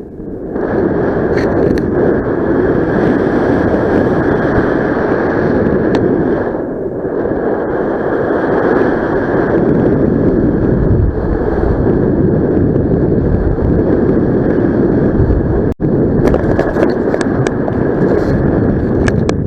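Wind rushing and buffeting over a camera microphone in paraglider flight, a loud steady rumbling roar with a few sharp clicks, mostly near the end.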